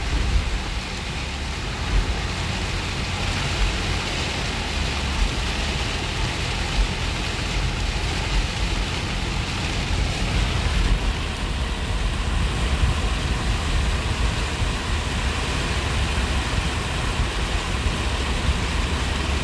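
Steady noise inside a moving car in heavy rain: rain on the windshield and tyres hissing through water on a flooded road, over a low rumble of the car.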